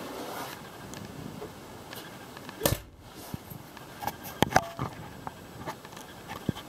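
Room tone of a small ferry cabin: a steady background hum with scattered handling clicks. There is a short thump about two and a half seconds in, the loudest sound, and a quick cluster of sharp clicks a little after four seconds.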